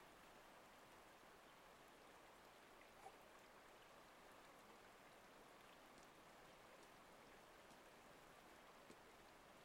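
Near silence: a faint, steady hiss of river ambience, like flowing water, with a tiny click about three seconds in.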